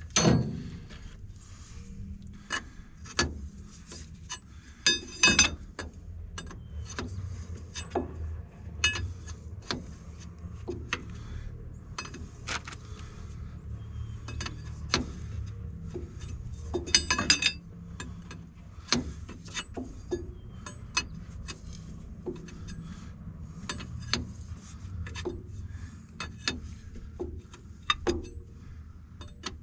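Wrench and steel hydraulic fittings clinking and knocking at irregular intervals as hose fittings on an excavator are worked on and tightened, with a couple of ringing metal clanks about five seconds in and again around seventeen seconds in. A low steady hum sits underneath.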